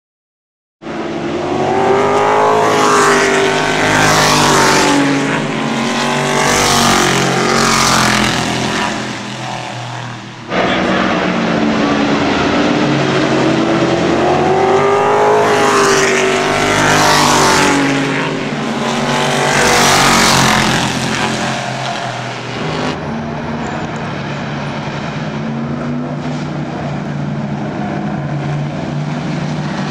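Race car engines at speed, cars passing with their pitch rising and falling. The sound cuts in abruptly about a second in and changes abruptly twice, as separate clips are spliced together. The last stretch is a steadier engine drone.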